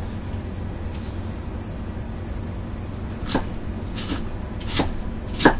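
Kitchen knife cutting a green bell pepper on a cutting board. After about three seconds of only a steady low hum and faint high whine, four short knife strokes come about 0.7 s apart, the second one lighter.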